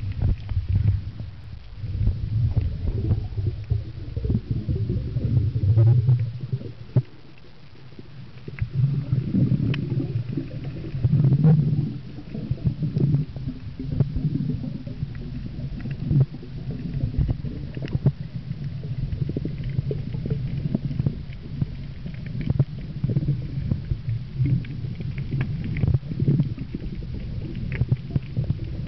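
Muffled underwater rumbling and gurgling of water moving around a submerged camera, with scattered faint clicks and a short lull about seven seconds in.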